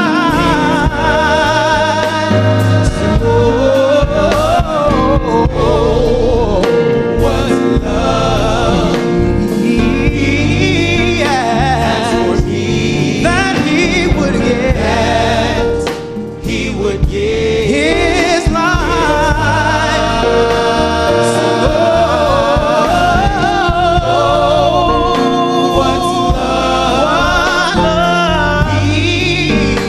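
Gospel vocal group singing in harmony, the voices gliding and wavering through drawn-out runs over sustained low notes, with a brief dip in loudness about halfway through.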